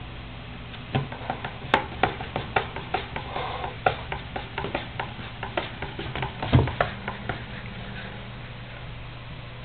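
Cat batting at a cardboard box flap with her paws: a quick, irregular run of light taps on the cardboard, several a second, with one heavier knock about two-thirds of the way through.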